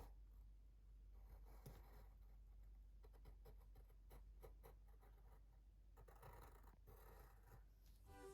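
Pencil drawing on paper: faint, irregular scratching strokes as the outline of a shape is sketched.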